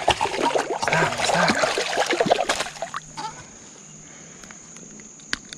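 A hooked smallmouth bass thrashing and splashing at the creek's surface as it is landed, irregular water splashes for about three seconds that then stop. A steady high insect drone is left afterwards.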